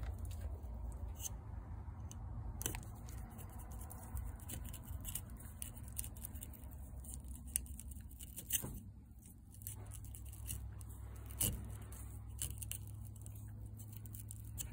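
Knife blade cutting and scraping through a bullhead's skin and flesh along its back, a run of short irregular clicks and scrapes over a steady low hum.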